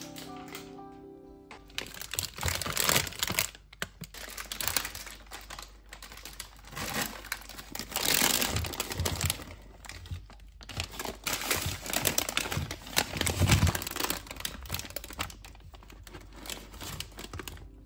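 Paper grocery bag and plastic mesh potato bags crinkling and rustling as they are handled and emptied, with potatoes knocking onto the paper and a duller thump about thirteen seconds in.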